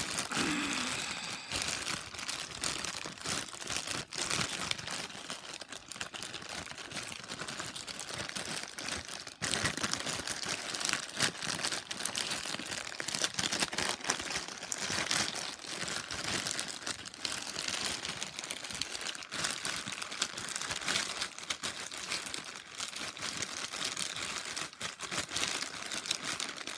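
A plastic bag crinkling continuously as a Rubik's cube is turned rapidly inside it, with quick clicks from the turning layers.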